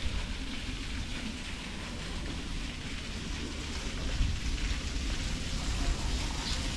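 Wind rumbling on the camera microphone over a steady outdoor hiss.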